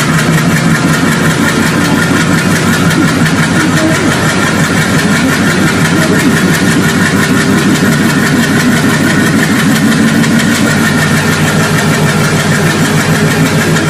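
Diesel locomotive engine running steadily and loudly: a low, even engine note with a rattle and a steady high whine over it.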